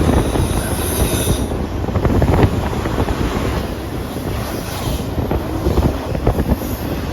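Freight train cars rolling past, wheels clacking over the rail joints, with a faint high wheel squeal about a second in and again near the end.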